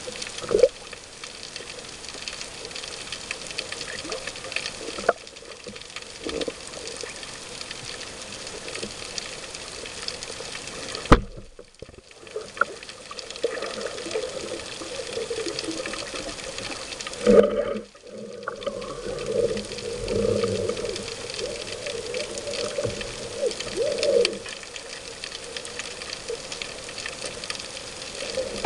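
Muffled water noise heard through an underwater camera on a speargun, with a few sharp knocks against the housing or gun and, in the middle stretch, a wavering, warbling tone.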